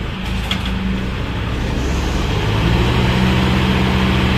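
Tractor diesel engines running under heavy load, growing steadily louder as they strain to pull a stuck tractor out of soft gravel and mud.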